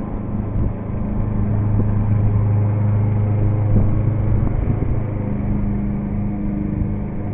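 Lawn mower engine running steadily in the background, a low hum that swells slightly and eases off.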